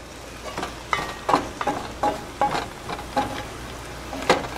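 Greens sizzling in a non-stick frying pan, with a series of light clinks, two or three a second, as the glass lid is set on and moved about on the pan.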